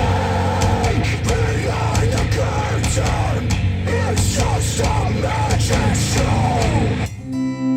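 Heavy rock music with shouted vocals and dense drums and guitars, played back through Wharfedale Denton 80th bookshelf speakers powered by a Sony STR-DG500 receiver. About seven seconds in it cuts off abruptly and a strummed acoustic guitar track begins.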